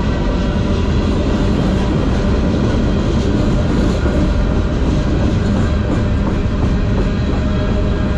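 Covered hopper cars of a freight train rolling past close by: loud, steady noise of steel wheels on the rails.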